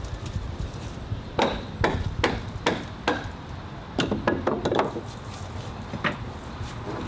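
Demolition of a rotted wooden deck: a series of sharp strikes on the wood. There are about five blows roughly half a second apart, then a quick flurry of hits, then a single last blow.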